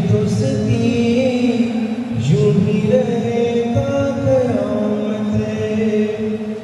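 A male singer singing live into a handheld microphone, holding long notes with a wavering, gliding melody.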